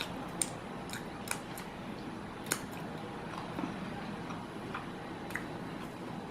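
A person chewing food, with a few scattered sharp mouth clicks over a steady background.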